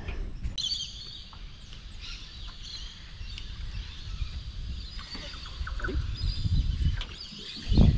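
Birds calling in the background, with a steady twittering high up, over an uneven low rumble; a short low thump comes near the end.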